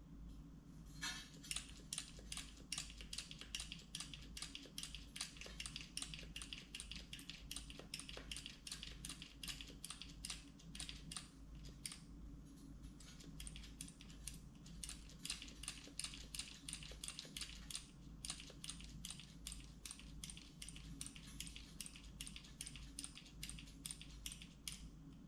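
Rapid, fairly quiet clicking, several clicks a second with a few short pauses, from a flaring tool being worked on a steel fuel line as it is run up toward resistance before the flare is formed.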